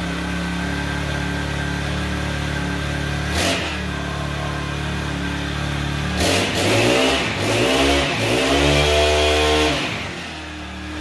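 Eskimo P1 Rocket propane ice auger's 40cc engine idling steadily, freshly started after sitting unused for a year. It gives one short rev about three and a half seconds in, then is revved up and down several times from about six seconds in before dropping back to idle near the end.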